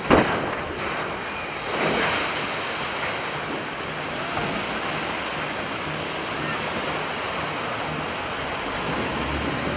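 A cargo ship hull side-launched into a canal: a loud crash as it strikes the water right at the start, a second surge about two seconds in, then the steady rush and splashing of the displaced wave.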